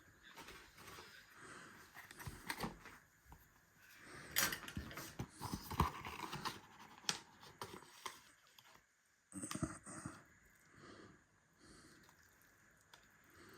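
Scattered knocks, clicks and rustles of kitchen handling, busiest from about four to seven seconds in, with another short clatter after about nine seconds.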